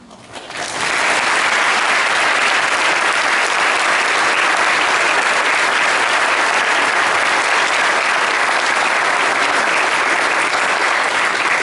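Audience applauding: clapping swells in within the first second and then holds dense and steady.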